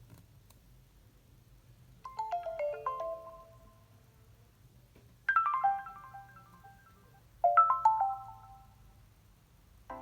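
Nokia Lumia 520 alert tones: three short melodic chimes, each a quick run of bright notes, starting about two, five and seven and a half seconds in.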